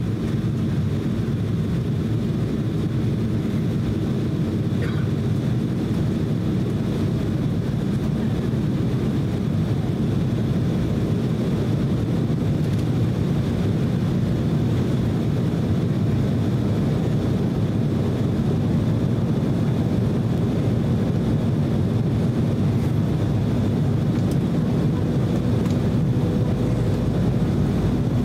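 Steady cabin noise inside an Embraer E190 jet airliner on descent: a low roar of its turbofan engines and the airflow past the fuselage, with a steady hum and a faint high whine. Near the end a second, higher hum comes in.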